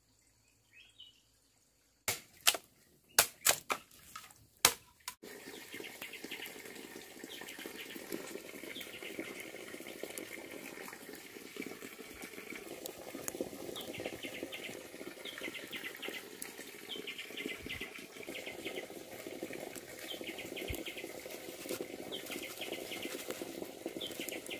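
Five sharp knocks or snaps a couple of seconds in. Then, from about five seconds in, a wood fire crackling and hissing steadily, with crabs roasting on the embers.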